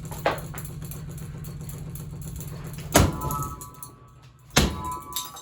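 A running ceiling fan's motor hums steadily while the fan is struck hard. There is a light knock at the start, then two loud impacts about three and four and a half seconds in, each leaving a ringing metallic tone. The hum dies away after the first loud strike.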